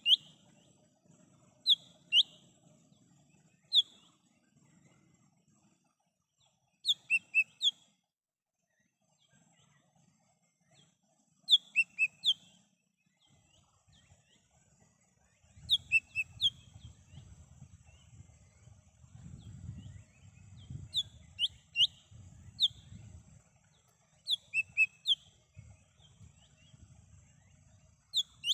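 Cucak hijau mini, a small green leafbird, calling with short, sharp, downslurred whistled notes in quick clusters of two to four, repeated every few seconds. A faint low rumble sits under the calls in the middle stretch.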